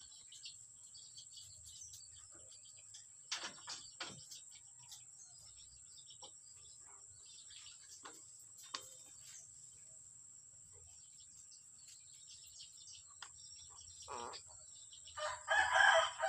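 Scattered short bird calls and chirps over a steady high-pitched hiss, with a louder, longer call lasting about a second near the end.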